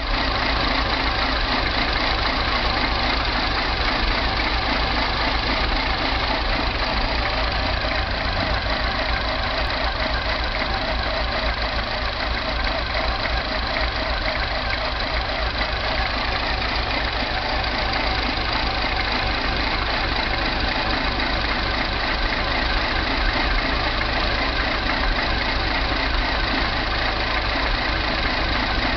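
Mini R56 engine idling roughly and steadily, with no fault codes stored; the owner suspects the timing chain.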